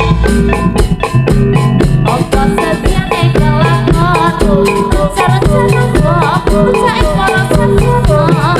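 Loud jaranan music: Javanese drums and percussion keeping a dense, even beat under steady pitched notes, with a wavering melody coming in about two seconds in, played through a PA sound system.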